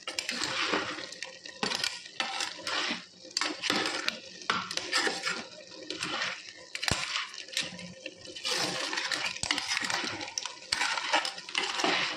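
A ladle stirring clams in their shells through a thick, wet masala in a pot: a run of irregular clinks and scrapes as the shells knock against each other and the pot.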